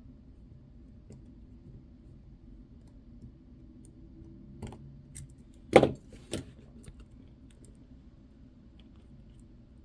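A few sharp clicks and taps of small metal tools against a wristwatch's parts, a cluster in the middle with one louder knock, over a faint steady hum.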